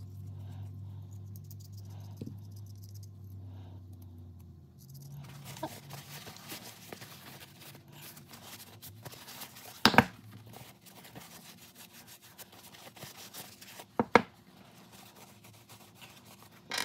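Blue paper shop towel rubbing and wiping over oiled monkey wrench parts: a scratchy rustling that starts about five seconds in, after a low steady hum stops. Two sharp knocks come about ten and fourteen seconds in.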